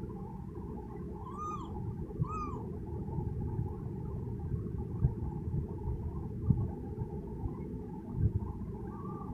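A kitten mewing: two short high mews that rise and fall, in quick succession, and a fainter one near the end, over a steady low rumble and a few soft knocks.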